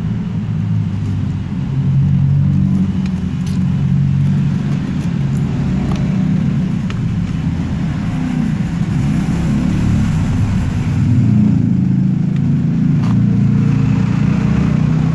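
A steady low rumble, like a motor or engine running, with a few faint clicks over it.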